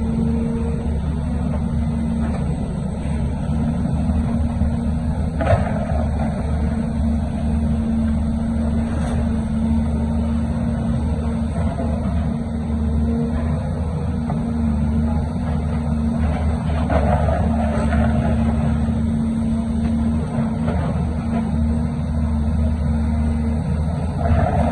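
Heavy diesel engine of earth-moving machinery running steadily with a low rumble, with one sharp knock about five and a half seconds in.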